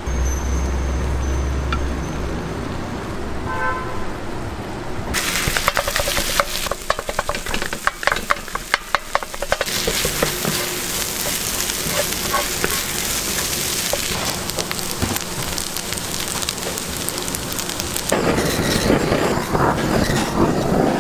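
Rice sizzling on a hot cast iron plate while two spatulas chop and stir it, their edges rapidly scraping and tapping on the metal. The sizzling and scraping start about five seconds in and grow louder again near the end.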